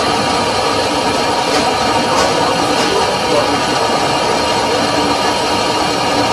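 Belt-driven lathe running steadily with a large multi-groove V-belt pulley spinning in its chuck: a continuous mechanical hum and whir of motor, belts and spindle. Three faint ticks come around two seconds in.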